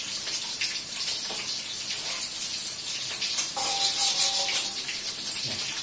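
Chicken pieces deep-frying in hot oil in a pan, a steady crackling sizzle, with a brief metallic ring of a pan or utensil about three and a half seconds in.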